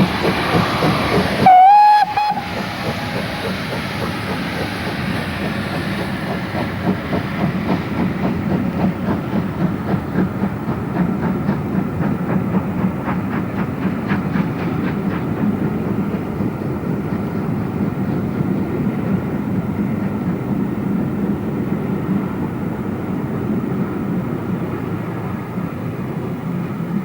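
Great Western steam locomotive giving one short whistle blast about two seconds in, then running on with rapid, even exhaust beats and rail clatter.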